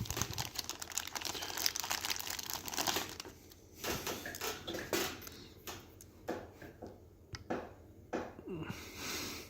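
Plastic packaging crinkling as a small model-train part is pulled out of it: continuous rustling for about three seconds, then a string of short separate crackles.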